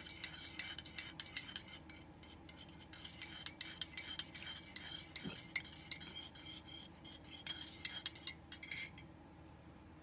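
Metal teaspoon clinking against the inside of a ceramic mug while stirring sugar into tea: quick, repeated light clinks, with a short pause about two seconds in, stopping about nine seconds in.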